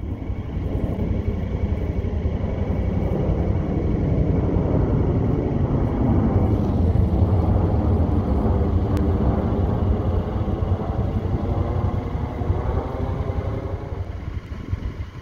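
V-22 Osprey tiltrotor aircraft flying overhead: a steady, deep rotor throb with rapid blade pulsing. It grows louder toward the middle and fades near the end.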